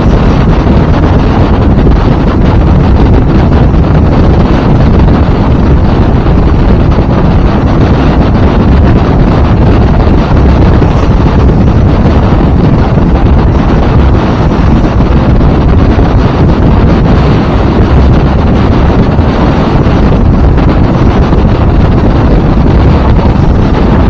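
Loud, steady wind rumbling over the microphone aboard a motorboat running through big waves, with rushing water noise mixed in.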